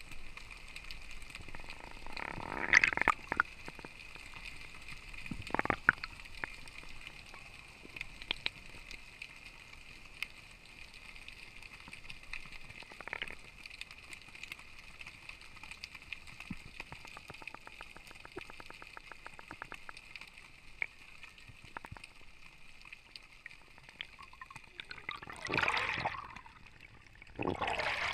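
Water gurgling and sloshing, with a handful of short, louder bursts of water noise and scattered clicks.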